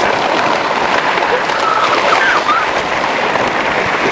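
Steady loud rushing noise from moving along the street: wind buffeting the camera microphone and wheels rolling over asphalt.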